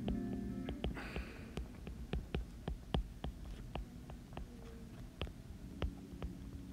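Stylus tip tapping and clicking on an iPad's glass screen while handwriting, a few sharp ticks a second at irregular spacing. Guitar music fades out in the first second.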